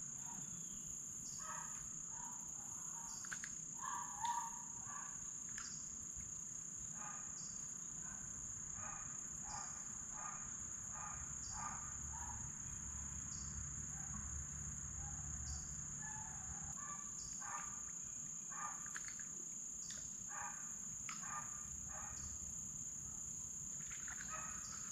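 Insects trilling in one steady, unbroken high-pitched drone, with faint short chirps or ticks now and then.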